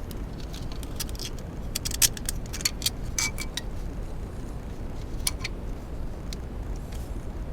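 Scattered light metal clicks and clinks of the coil's bottom bolt and nut being fitted by hand, over a steady low background hum.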